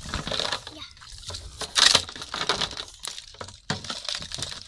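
Hands splashing and sloshing in shallow muddy water, in irregular bursts, with one sharper, louder splash about two seconds in.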